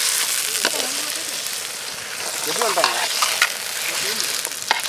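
Squid rings frying in oil in a large metal kadai, sizzling steadily while a spatula stirs them, with a few sharp scrapes and clicks of the spatula against the pan.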